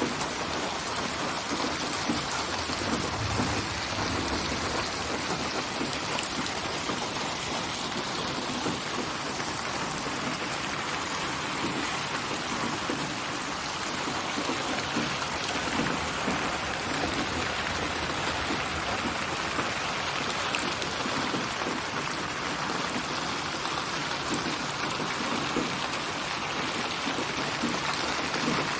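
Steady rain falling: an even, unbroken hiss that holds its level throughout.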